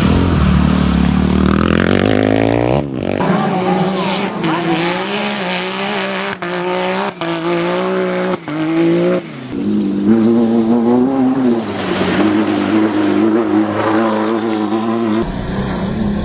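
Off-road vehicle engine revving up over the first three seconds, then running hard at high revs with a wavering pitch, broken by a few brief, sudden dropouts.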